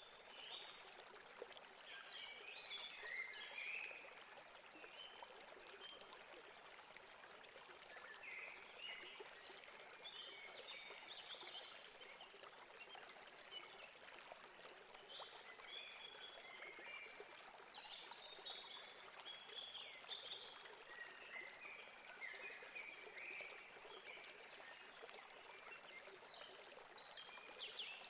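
Faint, steady rush of flowing river water, with small birds chirping on and off throughout.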